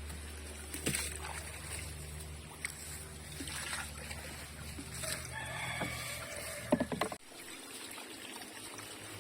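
A rooster crowing once, about five seconds in, over a low steady hum. A few sharp knocks come near the end of the crow, and then the hum stops.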